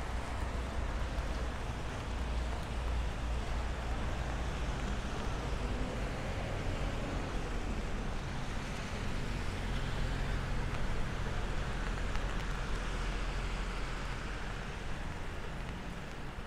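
Steady outdoor city ambience in the rain: an even hiss of rain and road traffic over a deep constant rumble, with no single sound standing out.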